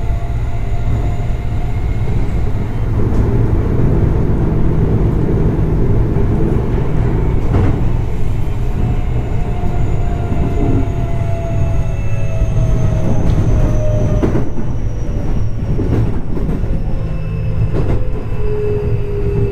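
Keio 8000 series commuter train heard from inside the car: Hitachi IGBT-VVVF inverter and traction-motor whine over a deep running rumble. The whine falls slowly in pitch as the train slows on the approach to a station, with a few wheel clicks over rail joints.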